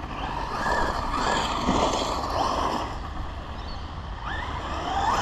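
Maverick Quantum 2 Flux RC monster truck driving hard: its brushless electric motor whines up and down in pitch as it accelerates and slows, over a steady rush of noise, with a rising whine near the end.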